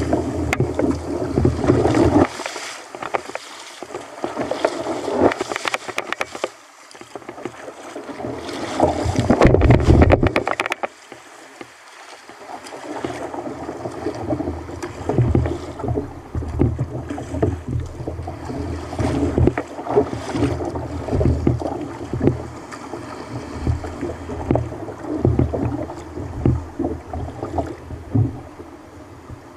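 Water rushing and splashing against a kayak hull as it is paddled through breaking surf, in loud washing surges, the biggest about ten seconds in. Later it settles into an uneven lapping and splashing.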